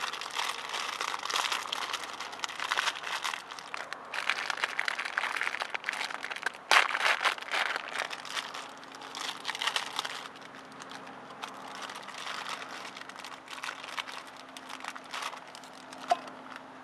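Plastic noodle packet crinkling and rustling as it is handled. It is densest for the first ten seconds or so, with a sharp crackle about seven seconds in, then thinner, scattered crinkles.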